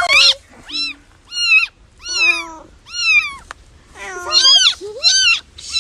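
Kittens mewing: a string of about eight short, high-pitched cries, each rising and falling, with a few lower-pitched calls mixed in.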